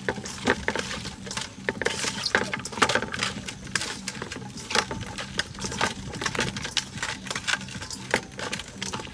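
Raw frog pieces being tossed and squeezed by hand with chopped chilies and scallions in a stainless steel bowl: many quick, irregular wet squishes and slaps, with clicks of meat and fingers against the metal.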